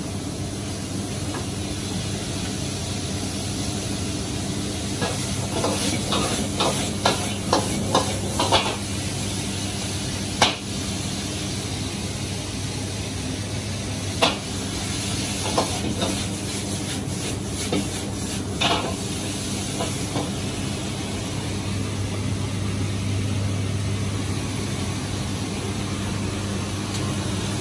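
Commercial wok station: a steady hiss and low hum from the wok burner and extraction hood, with food sizzling in the wok. A quick run of sharp metal clanks of a ladle against the wok comes about five to nine seconds in, with a few single clanks later.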